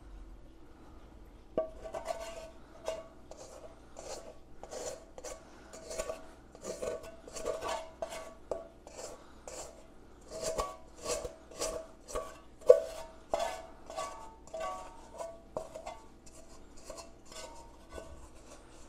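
A spatula scraping sticky bread dough out of a stainless steel mixing bowl in quick repeated strokes, about two a second, the metal bowl ringing with each scrape. The strokes start about a second and a half in and thin out near the end.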